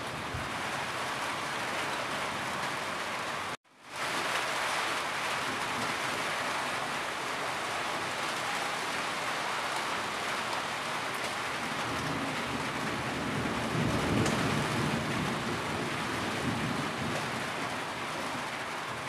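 Steady rain pattering on a tin roof, with water dripping off the roof edge. The sound cuts out abruptly for a moment about three and a half seconds in, then fades back. A low rumble swells in about two-thirds of the way through.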